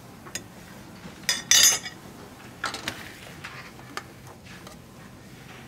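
Metal ladle scraping and clinking against a pot and a ceramic bowl as braised goat and beans are spooned out: one loud scrape about a second and a half in, followed by several lighter clinks and knocks.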